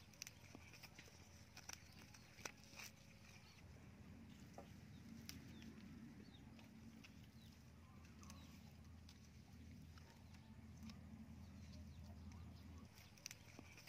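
Near silence: a low steady hum with a faint high hiss, broken by scattered faint sharp clicks.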